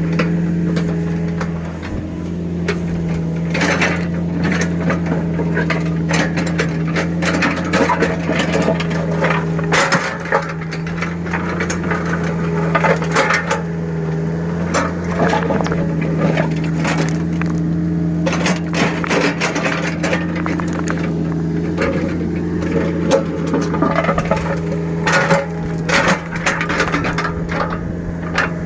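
Small excavator at work: its diesel engine runs steadily while the bucket and tracks give off irregular crunches, scrapes and clanks as it works the sand.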